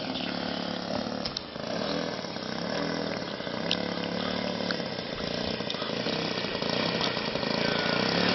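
Engine of a radio-controlled Seagull Cessna 152 model aircraft running steadily at low throttle as the model taxis on grass after landing, growing louder as it comes closer.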